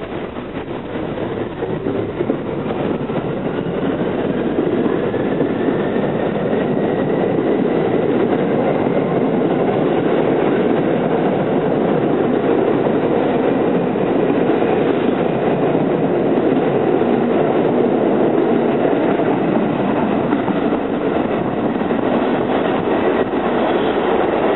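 R68A subway train pulling out of a station and gathering speed. A traction-motor whine rises in pitch over the first several seconds as it grows louder, then settles into a steady rumble of wheels on rail as the cars run past.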